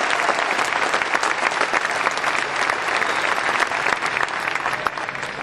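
Large audience applauding steadily, many hands clapping at once, easing off slightly near the end.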